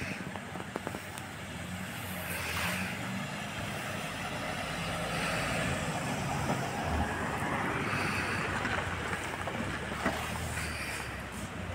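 Car on the move: steady engine and road noise.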